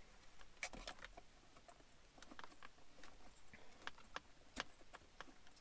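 Faint, irregular clicks and taps as a Cobra 19 CB radio is handled and fitted into its mounting bracket.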